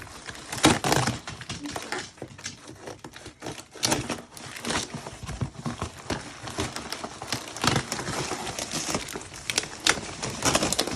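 Shipping box and its packing being handled and opened: irregular crinkling and rustling with scattered short tearing and scraping noises.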